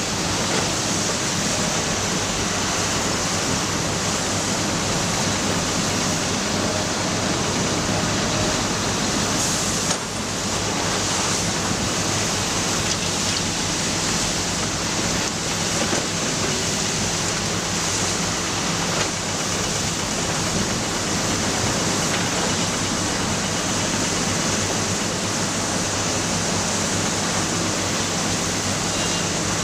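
Matador ME315 hydraulic excavator's diesel engine running steadily under working load, a constant loud noise with a low engine hum beneath it. It dips briefly about ten seconds in.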